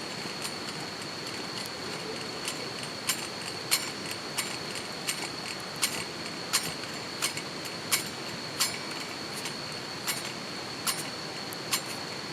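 Wood campfire crackling: sharp, irregular pops about one to two a second over a steady rushing hiss, with a thin, steady high-pitched tone alongside.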